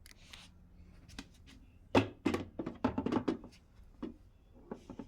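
Handling knocks and clatters as a cover is fitted onto a dehumidifier: a quick run of knocks about two seconds in and one more a couple of seconds later.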